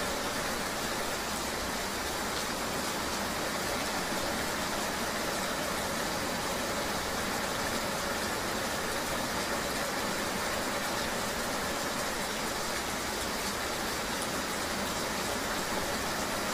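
Steady rain ambience mixed with a continuous vehicle engine hum: an even, unchanging hiss with a faint steady tone underneath.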